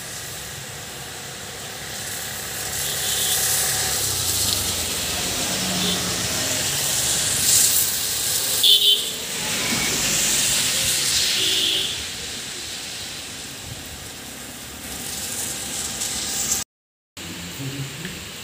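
Steady rain falling on trees and a wet road. A louder hiss swells up about two seconds in and fades away again after about twelve seconds.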